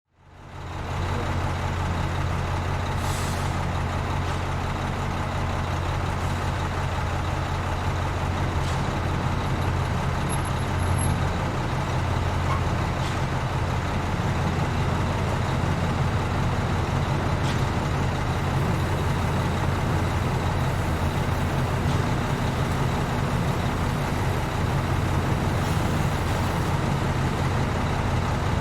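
Cement mixer truck's diesel engine running steadily: a constant low rumble that fades in at the start, with a few faint ticks now and then.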